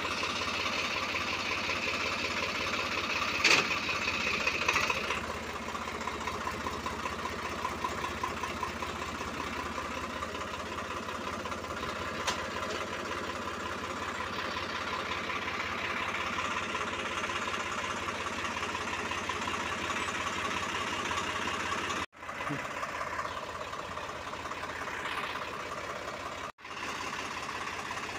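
Swaraj 744 FE tractor's diesel engine idling steadily, with a sharp clink about three seconds in and another about twelve seconds in. The sound cuts out for an instant twice near the end.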